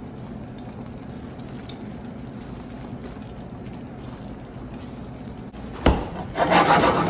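Chicken piccata sauce simmering in a skillet under a steady stove hum, then a sharp knock of a utensil against the pan near the end, followed by about a second of louder scraping as the chicken cutlets are moved in the pan.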